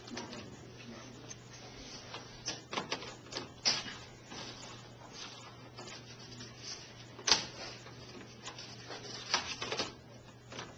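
Irregular knocks, taps and short scrapes of foam blocks and tools being handled on a hard benchtop, the sharpest knock about seven seconds in, over a steady low hum.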